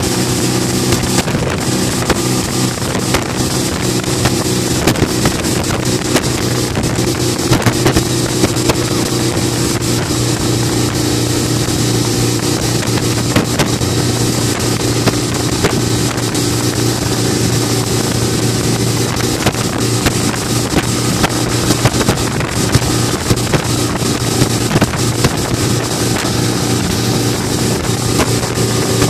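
Mercury four-stroke outboard motor running steadily at speed while towing a banana boat. It gives a constant engine hum under a loud hiss of wind and churning water.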